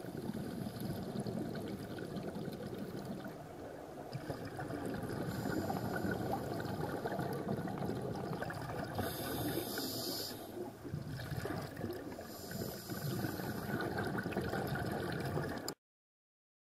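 Underwater sound from a diving camera: a scuba diver's regulator breathing and exhaled bubbles in a continuous watery wash, swelling and easing every few seconds. It cuts off suddenly near the end.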